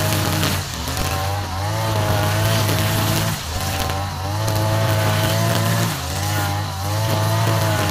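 Backpack brush cutter's petrol engine running at high speed as it cuts grass; the engine note wavers and dips briefly every few seconds.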